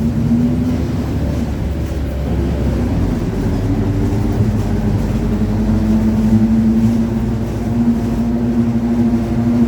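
Mercedes-Benz OF-1721 city bus under way: its diesel engine runs steadily under a droning, growling tone from the differential. The drone is strong at the start, eases off for a few seconds and returns stronger from about halfway on.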